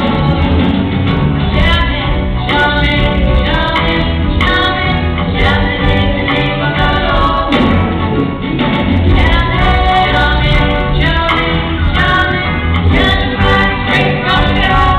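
Live pop-rock band performing: female lead vocals over electric guitars, bass and drums, with a large choir singing along, all at a steady loud level.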